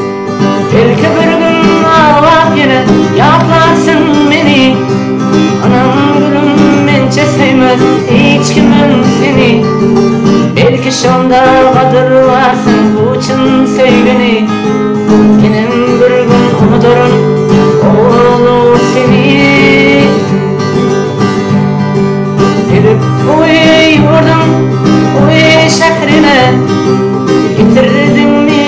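Music: an instrumental break in a song, with acoustic guitar playing under a melody line that slides up and down.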